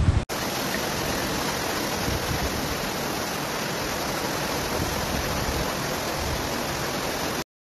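Fast-flowing floodwater rushing through a street: a steady, even rush of water that cuts off suddenly near the end.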